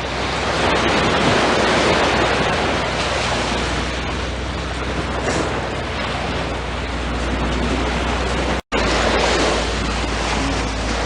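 Ocean surf washing up the beach, with wind on the microphone and a steady low hum underneath.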